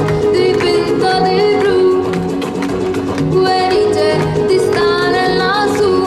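A girl singing live into a microphone over a flamenco-rumba backing track with strummed acoustic guitars and a steady beat.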